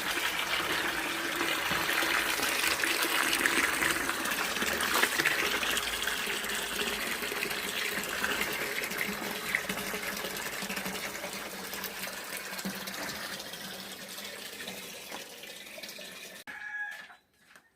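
Water running steadily, filling a container; it stops suddenly near the end, leaving a few clicks.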